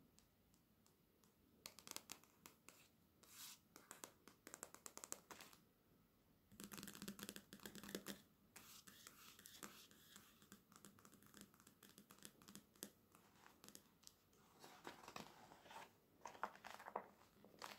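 Quiet handling of a glossy paper catalogue: long fingernails tapping and scratching on the cover in quick clusters, palms rubbing across it, then the cover and pages rustling as the catalogue is opened.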